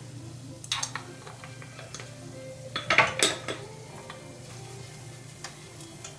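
Kitchen utensils clinking against a cooking pot and bowl: a few sharp clinks about a second in, then a louder cluster about three seconds in, over a steady low hum.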